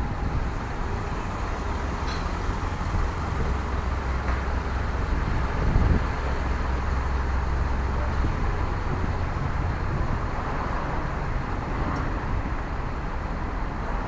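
Street traffic ambience: vehicle engines running with a steady low rumble and tyre noise, with passersby voices faintly mixed in.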